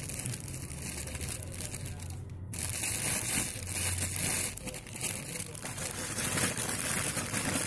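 Packaging crinkling and rustling as it is handled, a dense crackle with a brief break about two and a half seconds in.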